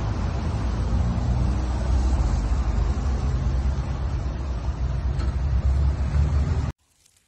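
Street traffic: cars passing on a wet road, heard as a steady low rumble with tyre hiss. It cuts off suddenly near the end.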